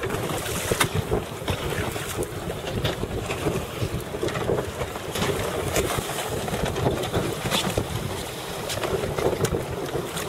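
Wind buffeting the microphone over water slapping and splashing against boat hulls, with scattered short knocks.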